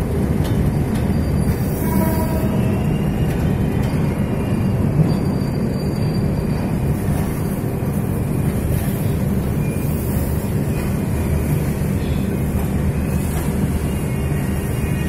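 Passenger train moving through a station, heard from inside the carriage: a steady low rumble of the wheels running on the rails.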